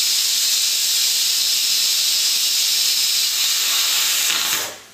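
Stovetop pressure cooker letting off steam through its whistle weight in a steady, loud hiss that cuts off sharply about four and a half seconds in. The release signals that the rice inside is cooked.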